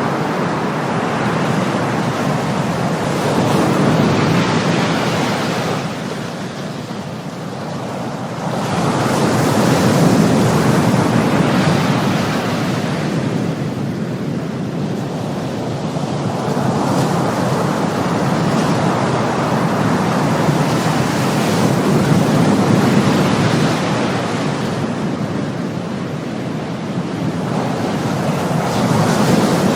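Ocean waves washing in on the shore in a continuous surf, swelling and falling back every six to eight seconds.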